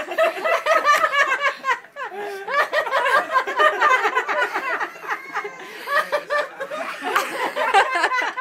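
Women laughing hard with clips pinching their noses shut. The laughter breaks off briefly about two seconds in, then picks up again.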